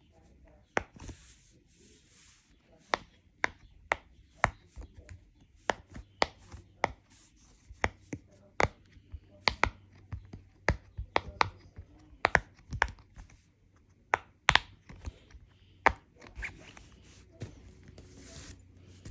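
A handheld fidget toy being worked by hand: a run of irregular sharp clicks and pops, roughly one to three a second, with faint rubbing and rustling between them.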